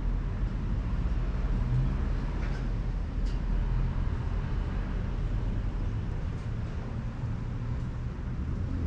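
Steady low outdoor rumble with no clear single source.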